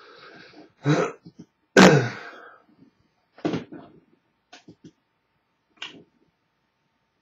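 A man coughing and clearing his throat: a handful of short separate bursts, the loudest about two seconds in.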